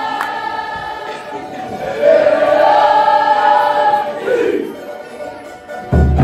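Cook Islands group singing: a chorus of young voices holds a long note that swells about two seconds in, then slides down in pitch. A deep thump comes just before the end.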